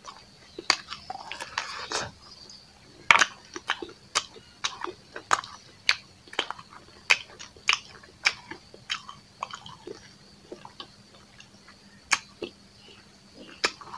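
Close-up mouth sounds of chewing rice and pork curry, with wet smacks and clicks coming irregularly, about one or two a second.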